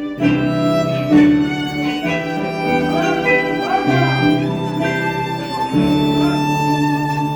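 Instrumental music on harp with bowed strings: held melody notes over a steady low bass line and plucked accompaniment.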